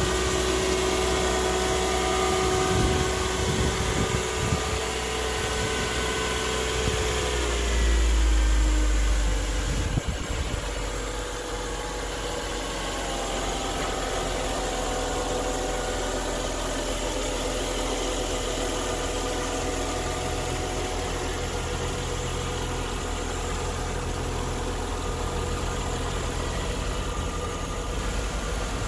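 A 2000 Mercedes-Benz S280's 2.8-litre V6 idling after a cold start, heard from the open engine bay. About eight seconds in, its whine drops in pitch and the engine settles into a lower, steadier idle.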